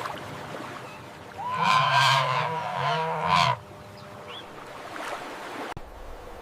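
Flamingo giving one honking, goose-like call that lasts about two seconds, starting about a second and a half in.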